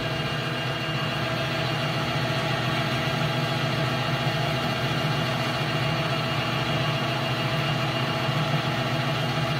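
Metal lathe running steadily at speed, spinning a rotary demagnetizer in its chuck: an even motor and gear hum with several fixed pitches.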